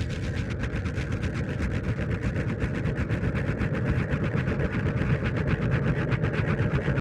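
A designed, engine-like sound effect: a steady low hum with a rapid even pulsing of about eight beats a second, cutting off abruptly at the end.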